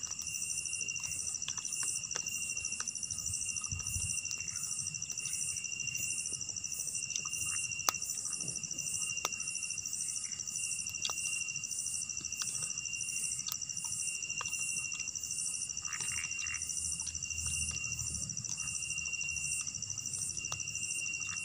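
Night chorus of crickets and other insects: a steady high trill with a second steady tone below it and a regular pulsing chirp above. Scattered faint small clicks sound throughout.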